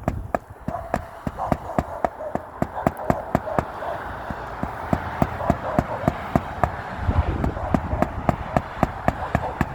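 Rapid, irregular tapping and clicking, several sharp knocks a second, over a steady hiss.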